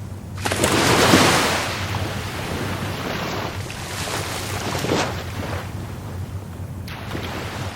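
Rough Caribbean Sea surf: a wave breaks about half a second in and is loudest around a second, then its wash runs on, with a smaller surge near five seconds.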